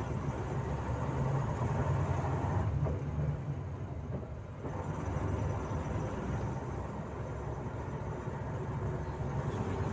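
Cabin noise of a Volzhanin-5270 city bus under way: a steady low engine drone with road noise, easing off briefly about four seconds in and then picking up again.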